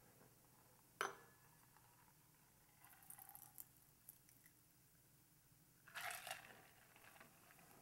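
Near silence, broken by a sharp click about a second in, faint ticks around three seconds and a brief clatter about six seconds in, from a cocktail shaker and glass being handled.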